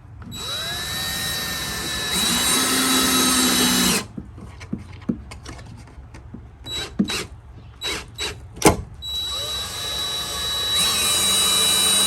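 Power drill run twice, each time for a few seconds. Each run spins up and then jumps higher in speed partway through. Between the runs come several short clicks and knocks, one of them sharp and loud.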